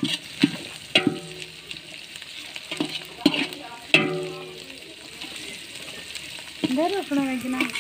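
Sliced onions, green chillies and curry leaves sizzling in oil in a large metal pot, stirred with a perforated metal ladle that scrapes and knocks against the pot a few times, loudest about four seconds in.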